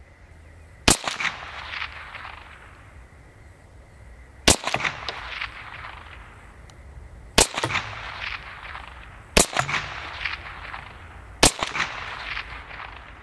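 A CZ 512 semi-automatic .22 WMR rimfire rifle fired five times at uneven intervals, each shot sharp and loud and trailing off in a short echo.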